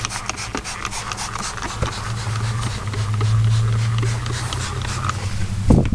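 A truck's floor carpet being worked over by hand with cleaner: a run of short scratchy strokes over a steady low hum. A heavy thump comes near the end.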